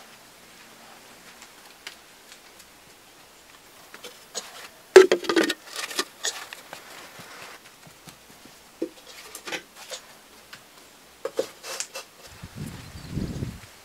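Clay pots knocking and clattering as they are lifted and handled, with the loudest cluster of knocks about five seconds in and scattered clicks after. A low scraping follows near the end as a pot is set down on a rendered earthen pillar.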